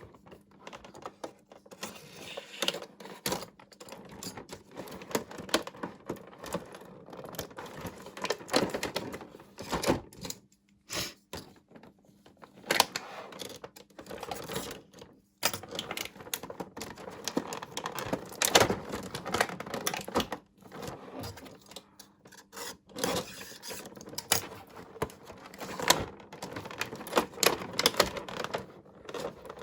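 Hands unboxing small toy tea-set pieces, with dense, irregular clicks and taps of plastic and packaging being handled. There is a short lull about ten seconds in.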